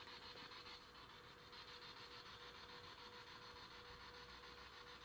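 Near silence: a faint steady hiss with a thin, steady hum.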